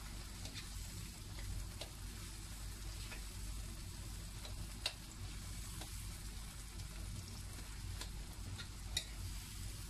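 Diced tomatoes and onions sizzling in a nonstick wok as a wooden spoon stirs them, cooking down to release their juice into a sauce. Light scraping runs under the sizzle, with a few sharp clicks of the spoon against the pan, the two loudest about five and nine seconds in.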